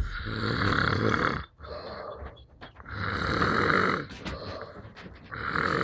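Someone asleep snoring loudly: three long, raspy, grunting snores like a pig's oink, about two and a half seconds apart.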